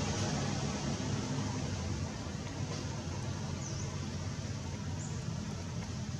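Steady outdoor background noise with a low hum, like distant traffic, and two brief faint high chirps in the second half.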